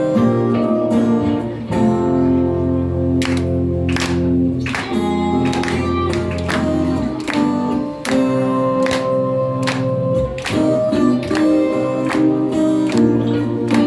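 Live band music led by guitar: held melody notes over bass, with regular sharp percussive hits.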